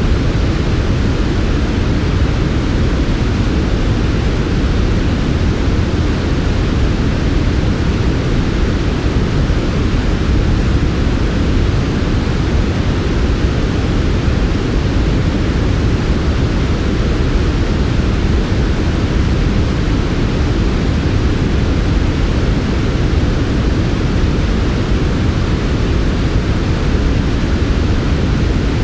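Steady, unchanging synthetic noise of the kind played for sleep, a smooth even hiss with most of its weight in the deep low range and a softer hiss above.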